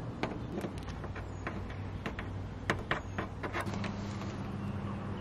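Scattered light clicks and taps of tools and mounting hardware being handled on the van's sheet-metal roof, over a low steady hum.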